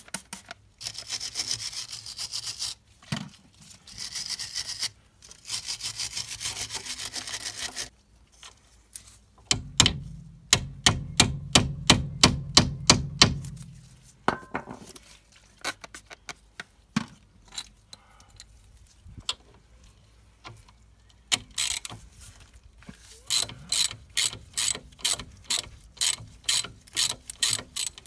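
Aerosol penetrating spray hissing in three bursts onto a rusty strut clamp bolt, then a socket ratchet clicking in runs of sharp, even clicks, the last run at about two clicks a second as the bolt is worked.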